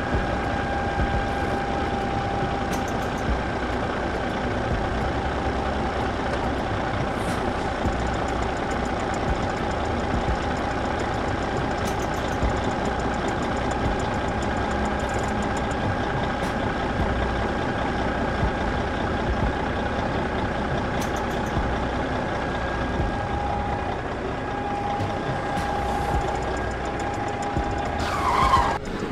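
A small motor running steadily with a constant whine, then stopping abruptly.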